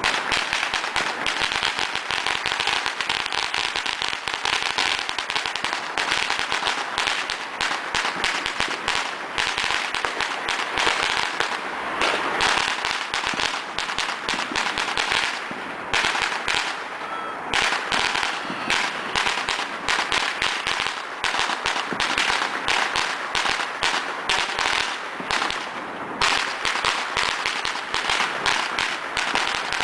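Firecrackers going off in a rapid, continuous crackle of sharp bangs, dense and unbroken throughout.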